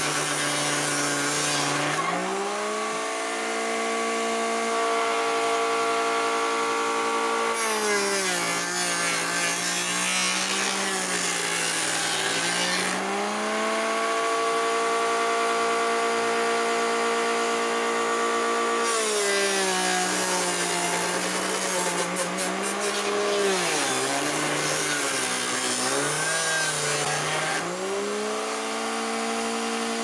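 Homemade sander built from a blender motor, running with a steady whine whose pitch sags and wavers while a wooden mirror frame is pressed against its sanding disc, with the scratch of abrasive on wood. Twice the work comes off and the motor climbs back to a higher, steady pitch running free, then bogs down again under load.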